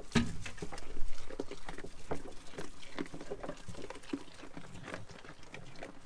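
Goats feeding at a wooden hay feeder: irregular rustling and crunching of hay with small knocks, busier at first and dying down toward the end.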